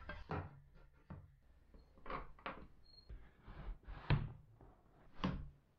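Handling knocks as a wooden board and the metal stop block are set on a plywood table-saw sled and its aluminium fence: about half a dozen light, irregular knocks and clacks of wood and metal.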